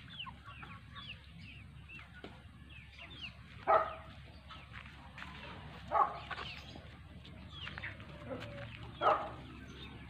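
Flock of hybrid chickens calling: many short, high, falling peeps throughout, with louder calls about four, six and nine seconds in.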